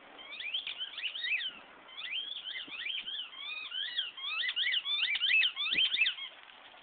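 Rubber squeaky toy squeaking again and again as a dog chomps on it: quick runs of short, high squeaks that slide up and down in pitch, with a brief pause about one and a half seconds in.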